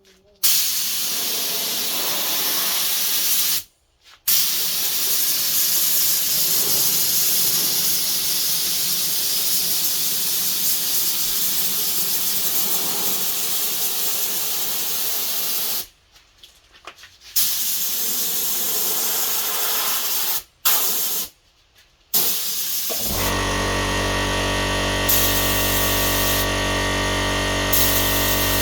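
Aerosol spray adhesive hissing from the can in several long bursts, stopping sharply between them. In the last few seconds the hissing gives way to a steady hum of even tones.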